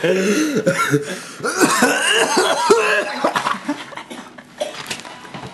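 A person coughing hard several times over the first three seconds or so, then quieter.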